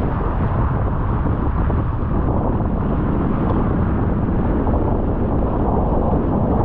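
Steady wind noise buffeting the microphone, mixed with the rush of water past the hulls of a Nacra 20 racing catamaran sailing fast on a beam reach.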